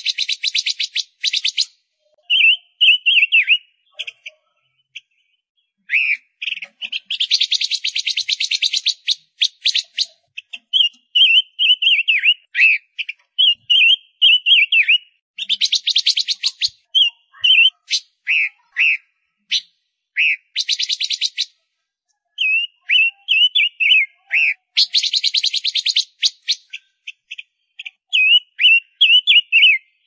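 Gouldian finch calling: short high chirps alternating with buzzy, fast-clicking rattles of a second or two, repeated several times.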